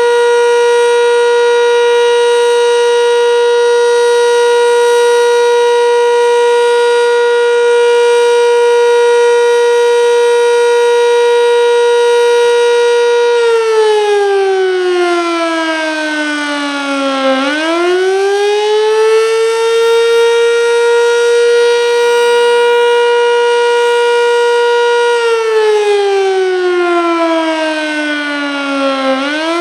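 Sentry 7V8-B outdoor warning siren sounding a steady tone (the Alert signal), then, about halfway through, switching to the Attack signal: the pitch drops and climbs back up, twice.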